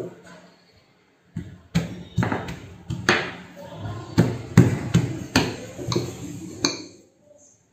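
Wooden rolling pin rolling dough on a silicone mat over a stainless-steel worktop, knocking as it is handled and set down: a dozen or so sharp knocks with a short ring, starting about a second and a half in.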